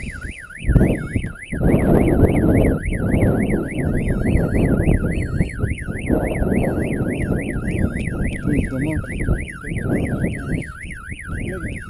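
Strong wind buffeting the microphone in gusts, loudest about two and six seconds in, over a continuous electronic tone that warbles up and down about three to four times a second.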